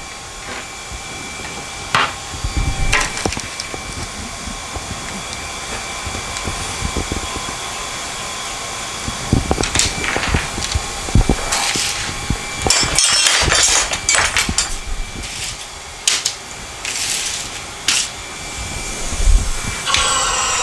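A steady hiss and hum, with repeated knocks, clicks and clinks, as glass neon tubing is handled at the bending bench.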